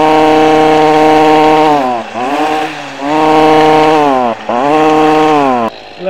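Two-stroke string trimmer engine running at high revs, running on undistilled, uncleaned pyrolysis oil made from plastic. It drops back about two seconds in, blips up briefly, returns to high revs, dips again past four seconds, then winds down shortly before the end.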